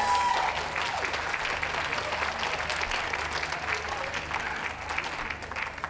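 Audience applauding: many hands clapping, easing off near the end.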